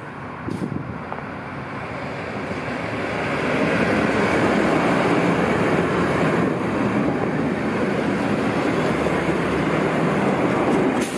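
Irish Rail diesel multiple-unit passenger train approaching and passing close by over the level crossing. Its wheel and running noise builds over the first few seconds and then stays loud as the carriages go past.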